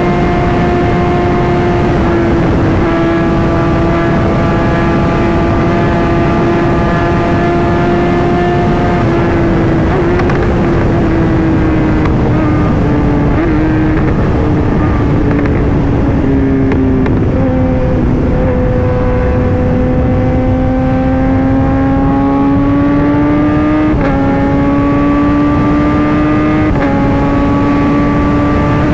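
Kawasaki ZX-10R inline-four sport bike engine running under way at a fairly constant rev. Its note sags slowly through the middle, then climbs again with a few small jumps in pitch, over steady wind noise.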